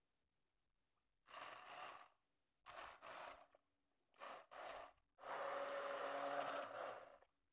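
Immersion blender pureeing tomato soup in short pulses: several brief whirring bursts, then a steadier run of about two seconds with a constant motor hum under the churning, which stops shortly before the end.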